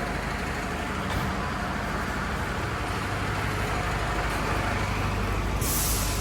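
Steady running noise of a motor vehicle with a low hum, and a short sharp hiss about five and a half seconds in.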